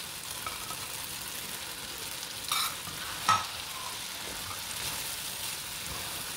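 Oil sizzling steadily in a wok over high heat as pre-fried okra pieces are tipped into onion-tomato masala and stirred with a spatula. Two sharp clacks of utensil on the pan stand out about two and a half and three and a half seconds in.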